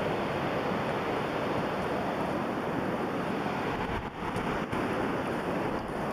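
A steady rushing noise with no breaks, dipping briefly about four seconds in.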